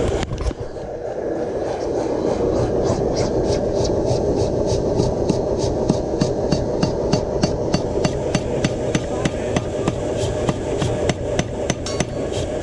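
Hammer blows on hot steel being forged into a knife blade, struck in a steady rhythm of about three a second over a continuous low rumble.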